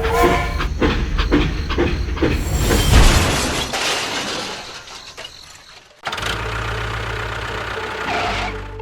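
Mechanical noise from a homemade model construction vehicle working: about six seconds of loud clattering with regular knocks, then an abrupt cut to a steady low engine-like hum.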